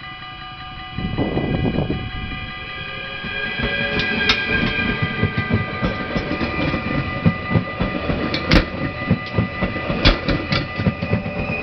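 Keolis passenger train running over a level crossing, its wheels clacking in a dense rhythm over the rail joints, with a faint rising motor whine. The crossing's warning bell rings steadily throughout, and there is a brief loud rush of noise about a second in.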